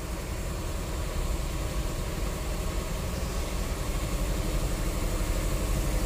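Cadillac DeVille's 4.9-litre V8 running under light throttle, getting gradually louder as the throttle opens a little. The engine is choking on a restricted exhaust, which the mechanic thinks is a clogged catalytic converter.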